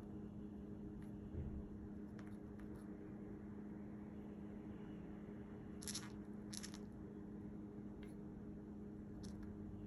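Cockatiel hiccuping: short, sharp clicks every second or two, the loudest two close together about six seconds in, over a steady low hum.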